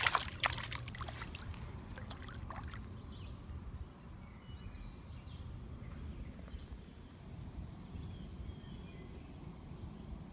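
A small channel catfish splashing in shallow water as it is released, a quick run of splashes in the first couple of seconds. After that only a low steady background rumble with a few faint chirps remains.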